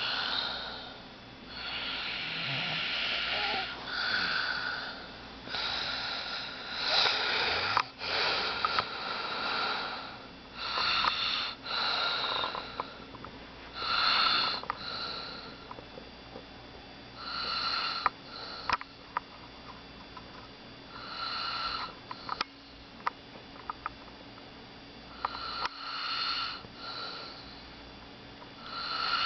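An old man snoring loudly in his sleep, with rasping breaths that repeat every few seconds.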